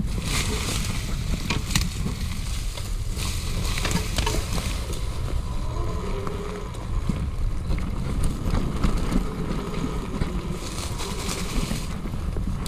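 Wind buffeting the microphone in a steady low rumble, with patches of rustling and crackling that come and go, strongest about half a second in, around three to four seconds in, and again near the end.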